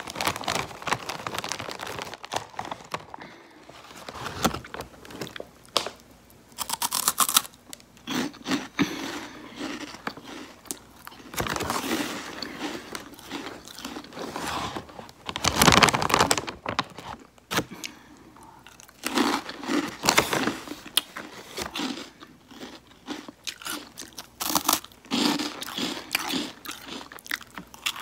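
A person biting and chewing crunchy potato-stick snacks (Oishi Potato Fries) close up: irregular crisp crunches in bursts, with short pauses between bites.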